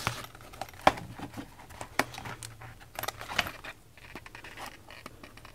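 A small cardboard product box being handled and turned over: light rustles and a few sharp clicks and taps, with a knife blade scraping at the box's edge.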